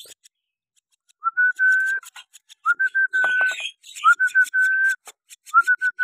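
A person whistling a short phrase four times, each a quick upward slide into a steady held note, with light rustling and a few clicks around the middle.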